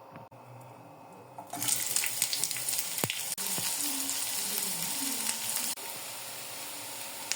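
Food hits hot oil in a frying pan about a second and a half in and starts sizzling loudly. The frying goes on steadily and turns a little quieter near the end.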